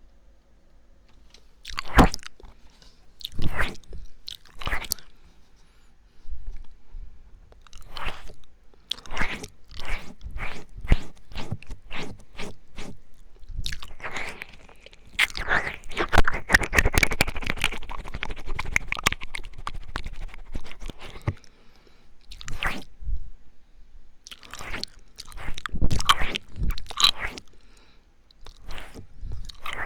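Close-miked ASMR ear-eating mouth sounds: wet licking, smacking and clicking in separate bursts, running into a dense unbroken stretch around the middle before breaking up into bursts again.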